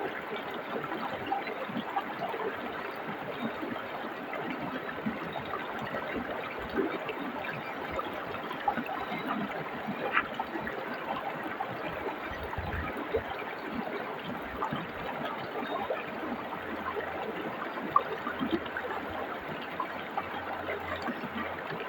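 Forest stream flowing steadily: an even rush of water with many small, irregular splashes and gurgles.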